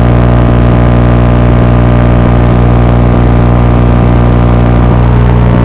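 Blade Torrent FPV quadcopter's electric motors running at a steady pitch, a loud, even drone that does not change.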